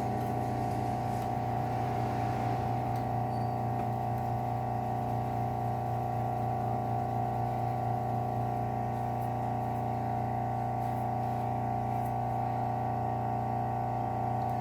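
Bench grinder with a Scotch-Brite wheel running with a steady hum while a rusty knife blade is buffed against the wheel to strip the rust.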